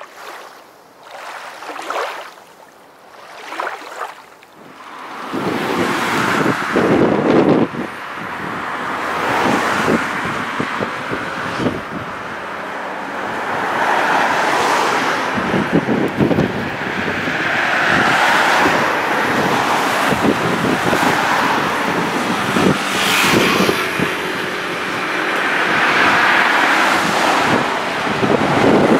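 Wind buffeting the microphone over small waves washing up a sand-and-shingle beach, the surf swelling and fading every few seconds. It is quieter at first, with a few short swishes, and becomes a steady, louder rush about five seconds in.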